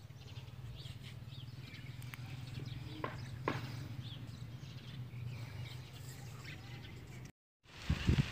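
Small birds chirping now and then over a steady low hum, with two sharp clicks about three seconds in. Near the end the sound cuts out for a moment and comes back as a louder rushing noise.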